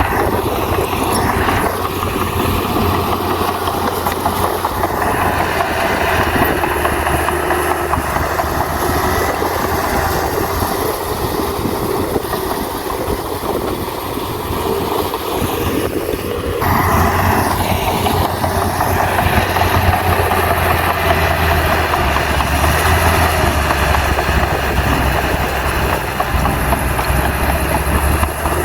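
Bulldozer's diesel engine running steadily under work, growing louder about two-thirds of the way through.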